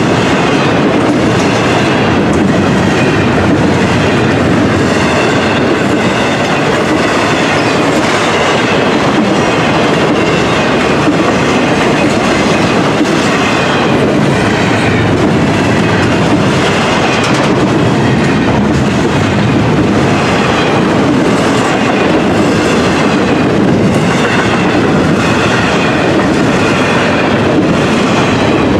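Freight train cars, a string of containers and trailers on flatcars, rolling past close by at speed: a loud, steady rumble of steel wheels on rail with repeated clacking over rail joints.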